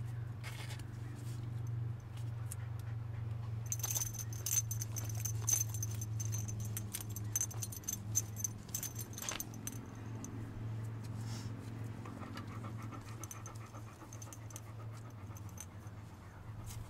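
Light metallic jingling and clicking with plastic rustling as supplies are rummaged in a zippered bag, loudest from about four to nine seconds in, over a steady low hum.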